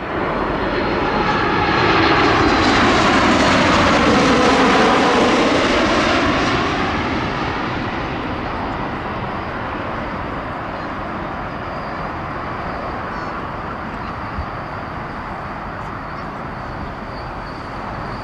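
Jet airliner on final approach passing low overhead: a loud engine roar whose whine falls in pitch as it goes by, then fading to a steadier, more distant rumble.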